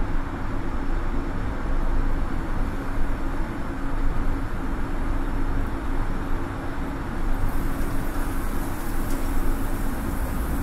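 Steady industrial din of a steel mill's converter hall, heard high under the roof: a deep continuous rumble with a steady hum running through it. After about seven seconds a brighter hiss comes up over it.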